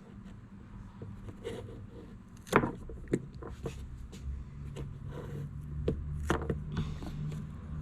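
Several sharp clicks and knocks of parts and tools being handled, with a low steady hum starting about four seconds in.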